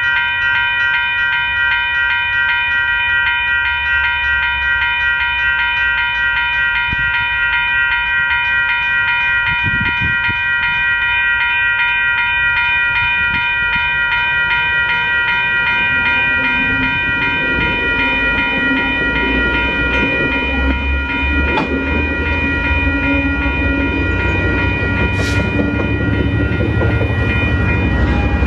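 A level-crossing warning bell rings steadily and rapidly as an exo commuter train of bilevel coaches approaches. From about halfway, the rumble of the train's wheels on the rails grows louder as the coaches roll past, with a few sharp clicks near the end.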